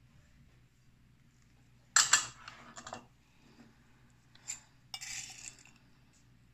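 Kitchen utensils clinking and knocking against dishes: two sharp clinks about two seconds in with a short clatter after them, then a single clink and another brief clatter about five seconds in.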